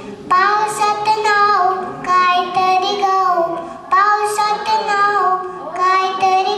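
A young girl singing into a microphone, two sung phrases of held and gliding notes, the second beginning about four seconds in.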